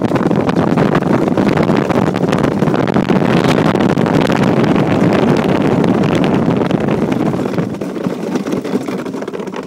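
Steel runners of a DN iceboat rumbling and hissing over the ice at speed, with wind buffeting the microphone. The noise is loud and steady, with a crackly texture, and eases a little in the last couple of seconds.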